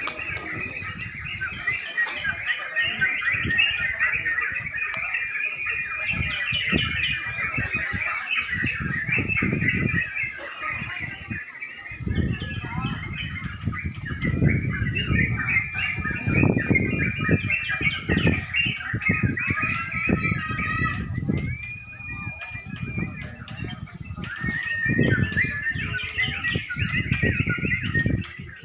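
Many yellow-vented bulbuls (cucak crucuk) singing at once in contest cages: a dense, unbroken mass of overlapping chirps and trills, with irregular low noise underneath.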